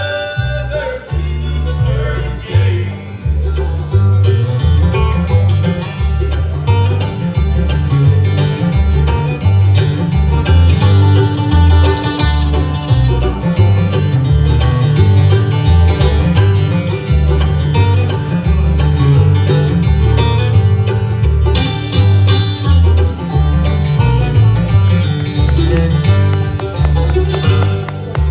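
Bluegrass band playing live, with banjo and guitar over a steady bass beat.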